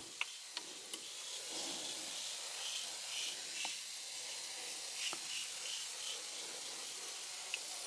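Faint, steady hiss of water soaking into the potting compost of a cell seed tray as it is watered, with a few light clicks.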